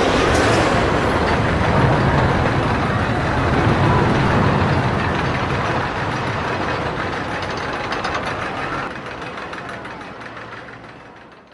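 Roller coaster train rumbling along its track, a loud, dense clatter and roar that fades away steadily over the last few seconds.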